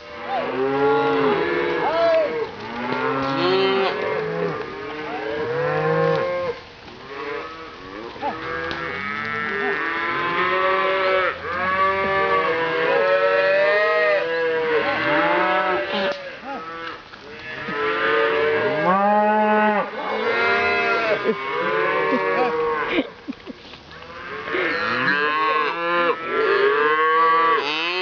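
Herd of cattle, many of them calves, mooing continuously, with many calls overlapping one another.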